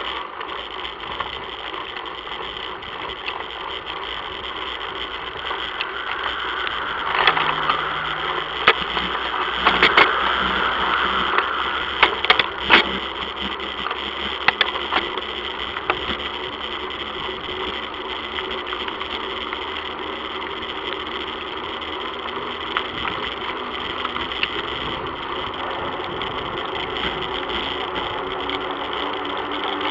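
Steady wind and road noise on an action camera riding on a moving bicycle, with a run of sharp knocks and rattles about a quarter to halfway through. Near the end a car engine comes in as a low hum slowly rising in pitch.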